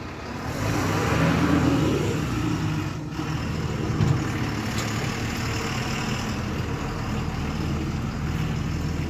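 Tata LPT 3118 truck's diesel engine idling steadily, swelling louder for a second or so near the start. There is one sharp knock about four seconds in.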